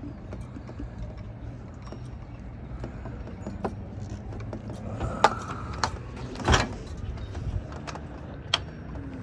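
Scattered sharp metallic clicks and clacks as the camper door lock and its parts are handled and worked, a few seconds apart and louder in the second half.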